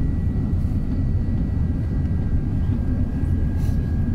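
Steady cabin noise inside an Airbus A380 on its descent: an even low rumble of airflow and its four Rolls-Royce Trent 900 engines, with two faint steady high tones above it.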